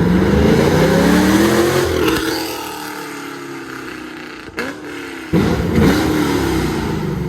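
Chevrolet Camaro SS's LS3 V8 through Texas Speed long-tube headers, an X-pipe and Valvetronic mufflers, revving: the pitch climbs for about two seconds and falls away, a short blip comes about halfway through, and then another sudden, loud rev climbs and falls back near the end.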